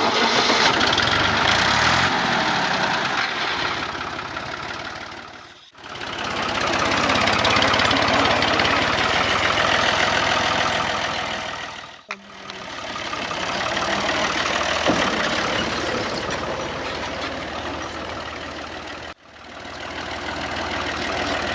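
A small motor-driven machine running steadily with a dense mechanical whirr. The sound fades out and back in three times.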